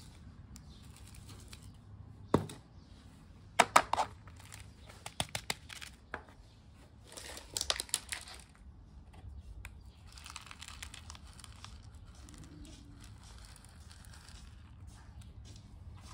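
Potting mix and akadama granules being handled in a small plastic pot: sharp clicks and knocks in the first half, with a cluster about four seconds in and scratchy rustling near eight seconds, then softer gritty scraping as the granules are spread over the soil.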